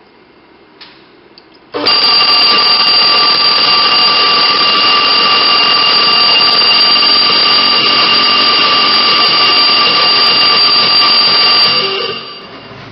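Datamark MP 50 dot peen marker's stylus hammering a rapid stream of dots into a steel brake disc, a loud continuous buzz with steady ringing tones. It starts abruptly about two seconds in and dies away about a second before the end.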